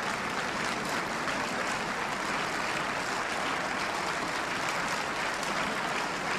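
Steady applause from a large parliamentary assembly, many hands clapping at once.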